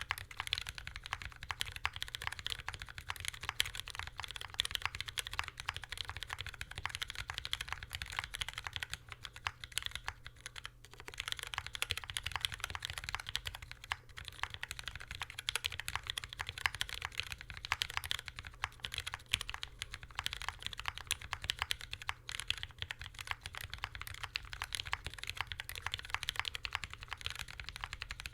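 Continuous typing on a custom aluminium Alice-layout mechanical keyboard (MGA Standard) with retooled Cherry MX Brown tactile switches and GMK keycaps: a dense run of key clicks, with a brief pause about eleven seconds in.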